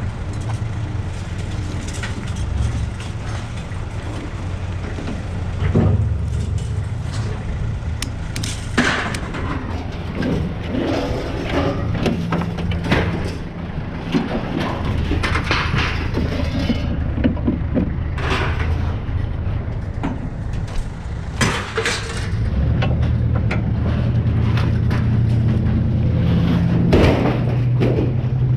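Scrap metal clanking and banging in irregular bursts over a vehicle engine running steadily, the engine getting louder about three quarters of the way in.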